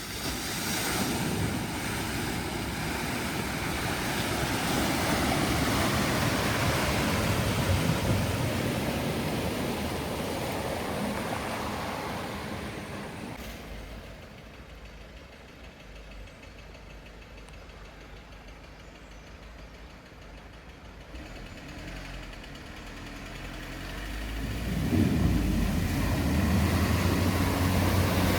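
Vehicles driving through floodwater: a long rush of water and tyre noise that swells and fades over the first half, a quieter lull, then a vehicle's low engine rumble rising near the end.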